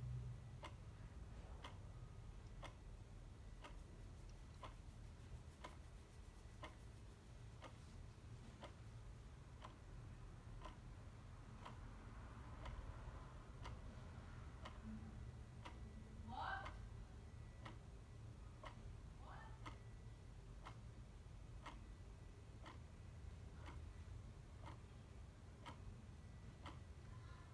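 Clock ticking steadily, about once a second, over a low hum. About two thirds of the way through come two brief faint rising sounds.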